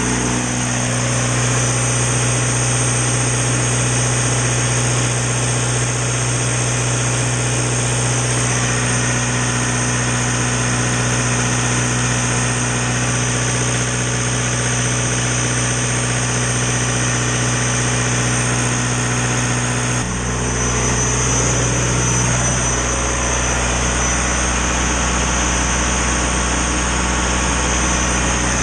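John Deere 4045 turbocharged four-cylinder diesel engine of a standby generator running steadily, with a constant high whine over the engine hum. About twenty seconds in the level dips briefly and the low hum shifts, growing heavier.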